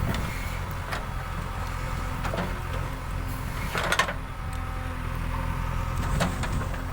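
JCB 3DX backhoe loader's diesel engine running steadily, with a few sharp knocks and clanks over it, the loudest about four seconds in.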